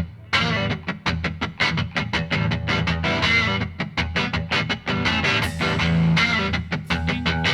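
Background rock music with a guitar and a quick, steady beat.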